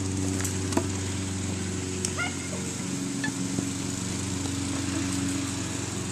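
Steady low hum of a small engine or motor running, with a couple of faint clicks.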